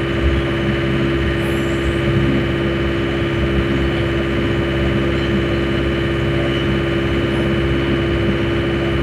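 The Yanmar diesel engine of a 6.2-ton mini excavator running steadily at a constant pitch, while its hydraulics pull the boom against an anchored chain at close to the machine's maximum lifting force.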